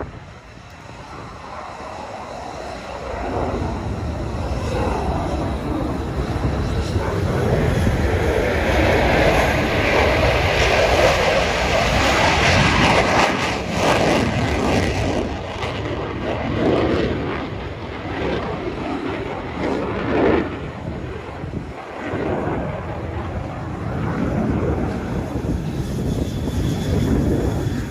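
Military jet engine noise, building over the first few seconds to its loudest about eight to fourteen seconds in, then carrying on, rising and falling.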